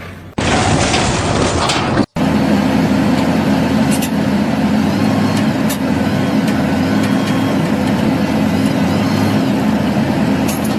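Heavy vehicle engine running steadily; the sound cuts out for a split second about two seconds in, then carries on unchanged.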